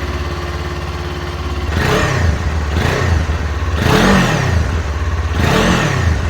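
Kawasaki Ninja 400's parallel-twin engine on its stock exhaust, idling steadily, then revved four times in quick blips, about two, three, four and nearly six seconds in, each rising and falling back to idle.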